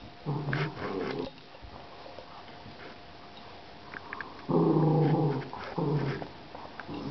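Dog growling in play during a game of tug: a low growl about half a second in, a longer, louder one about four and a half seconds in, then a short one right after.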